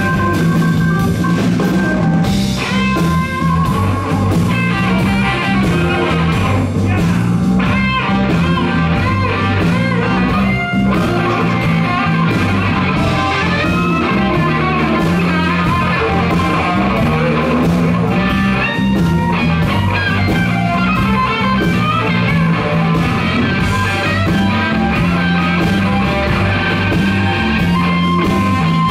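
Live blues-rock band playing an instrumental section: an electric guitar leads with bent notes over bass guitar and drums.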